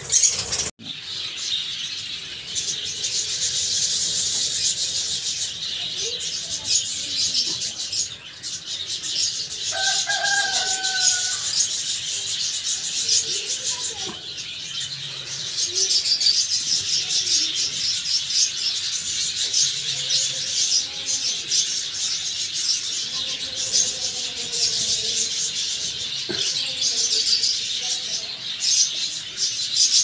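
An egg-bound hen budgerigar flapping and calling as it is caught by hand in a wire cage and held. One short pitched call comes about ten seconds in, over continuous high chirping and rustling.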